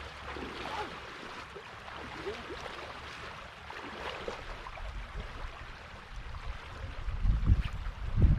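Water trickling and lapping around a kayak on a creek. A low rumbling on the microphone builds about two-thirds of the way through and turns loud and gusty near the end.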